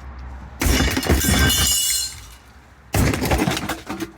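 A Tchibo automatic coffee maker being smashed: two loud crashes with shattering and rattling of breaking parts, the first about half a second in and clattering on for more than a second, the second shorter, near the end.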